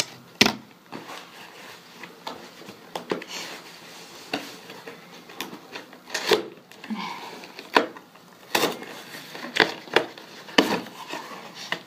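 Hands picking at and prying open a cardboard shipping box: irregular sharp clicks, taps and scrapes of cardboard being handled.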